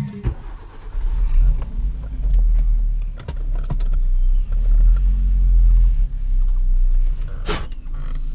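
A Suzuki car's engine starting and idling with a steady low rumble inside the cabin. There are a few sharp clicks around three seconds in and a single loud knock about seven and a half seconds in.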